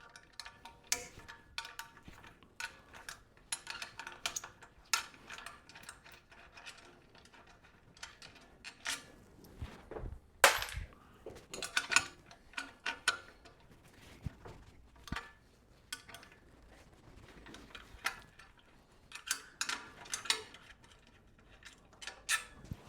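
Scattered metallic clinks and knocks of a bed frame's top bar being worked loose and lifted off its uprights, with one sharp knock about ten seconds in.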